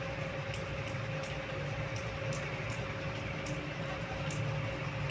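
A steady low mechanical hum with a thin constant tone, and faint scattered ticks.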